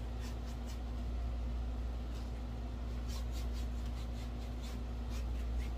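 Paintbrush stroking across a primed canvas: runs of short, soft scratchy swishes, near the start and again from about three seconds in, over a steady low hum.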